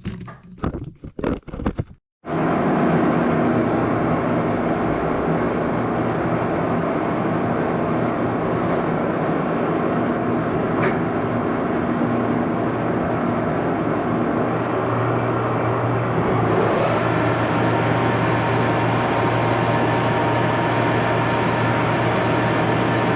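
A machine running steadily, a continuous mechanical hum with a low drone that strengthens slightly about two-thirds of the way through, after a few short knocks and handling sounds at the start.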